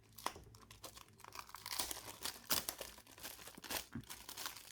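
Small item's packaging crinkling and tearing as it is opened by hand, in an irregular run of sharp crackles and rustles.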